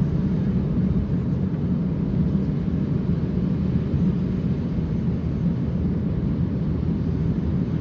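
Steady low rumble of a car driving along the road, even and unbroken throughout.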